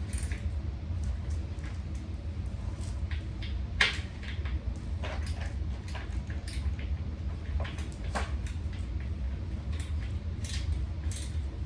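Scattered light clicks, knocks and metallic clinks of bolts, hardware and tools being handled while legs are fitted to a metal-framed table, over a steady low hum.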